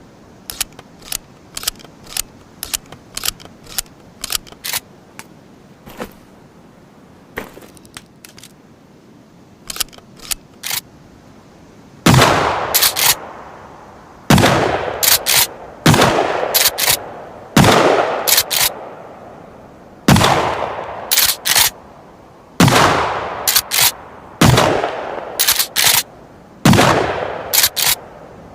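Remington 870 TAC-14 pump-action firearm: sharp mechanical clicks and clacks of the action being handled at first, then, from about twelve seconds in, eight loud shots roughly two seconds apart, each ringing out and followed by the quick double clack of the pump being racked.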